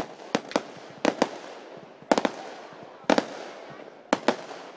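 Fireworks going off: sharp bangs, often in quick pairs, about one to two a second.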